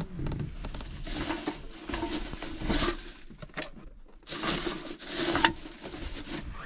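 A clear plastic bag crinkling and rustling as it is handled, in several bursts, mixed with the rustle of a blanket and sleeping bag shifting as the wearer leans over.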